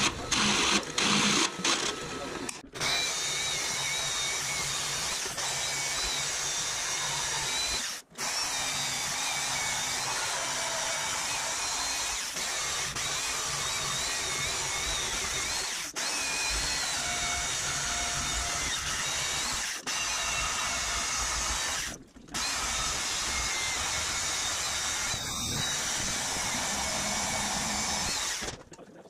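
A milling machine drilling through the spring steel of an old masonry saw blade for the first couple of seconds, then a vertical bandsaw cutting the same steel: a steady cutting noise with a faint wavering whine. It stops abruptly several times at edits.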